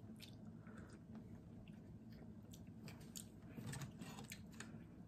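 Faint chewing, with small clicks and crackles as crab meat and shell are bitten and pulled apart by hand, a little busier about three and a half seconds in.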